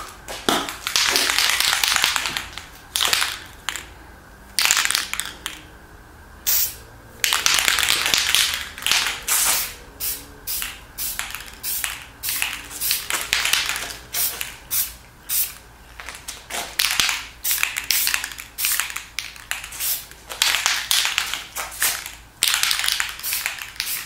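An aerosol can of Testors flat black spray enamel hissing in a series of bursts. The first few last a second or two and the rest are short puffs, as the paint is dusted lightly over a model concrete floor to weather it.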